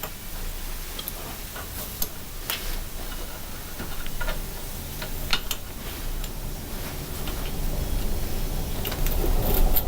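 Small metal parts of a sawn-open brass padlock clicking and tapping as they are handled and fitted together, in irregular light clicks. A low rumble builds near the end.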